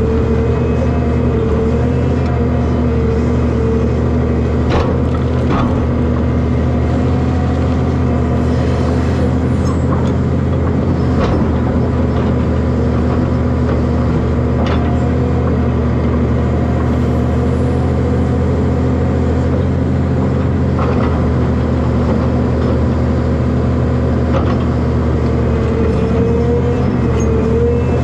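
Excavator's diesel engine running steadily under working load, with a hydraulic whine that wavers at times as the boom and bucket move. A few sharp knocks are heard over it.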